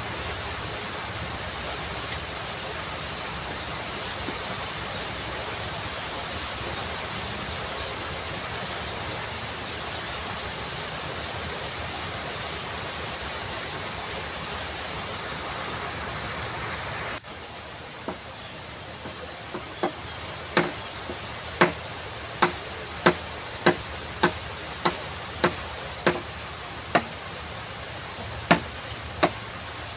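Steady high drone of insects over an even hiss. After a sudden cut about halfway through, a machete chops a dry bamboo pole: over a dozen sharp strikes, one or two a second.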